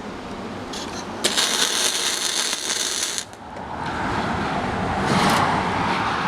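MIG welding arc crackling and hissing in one run of about two seconds, which stops short, then a second run starts.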